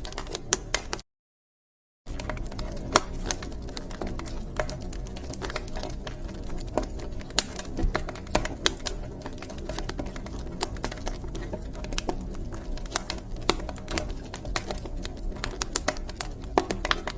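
Wood fire crackling in a fireplace, a steady low hiss dotted with irregular sharp pops and snaps. It drops out to total silence for about a second near the start.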